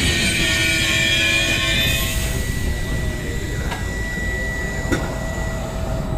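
A train passing through a station and fading away. Its low rumble dies down while several high ringing tones from the wheels and rails fade out in the first two seconds. A faint steady high tone and a couple of light clicks remain.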